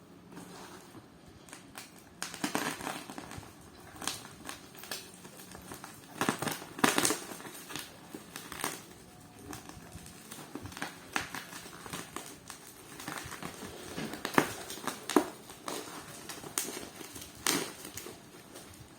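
Parcel packaging being handled and opened: irregular crinkling and rustling of the wrapping, with sharper crackles from time to time.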